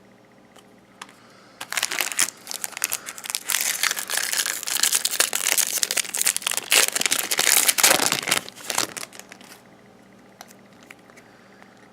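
Foil wrapper of a trading-card pack crinkling as it is torn open and pulled off the cards. The dense crackling starts about a second and a half in and stops a couple of seconds before the end.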